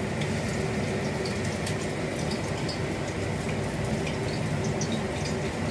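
Masala-coated fish pieces frying in hot oil in a kadai: a steady sizzle with small scattered pops.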